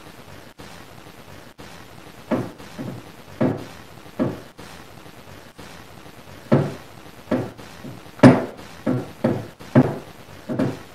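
A series of about eleven dull knocks at irregular intervals, coming closer together in the second half, the sharpest and loudest about eight seconds in.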